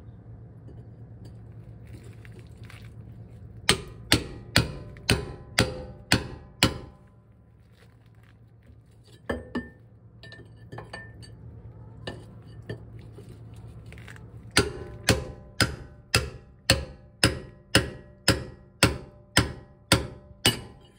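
Hammer blows ringing on a steel pickle-fork tie rod end separator wedged between a John Deere 5320's tie rod end and steering knuckle, driving the joint apart. The strikes come about two a second: a run of six, a lone blow, then a longer run of about a dozen.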